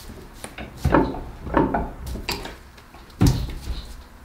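Knocks and thumps of a log being handled and set into a metal bench vise on a wooden workbench: about four knocks, the heaviest a deep thump near the end.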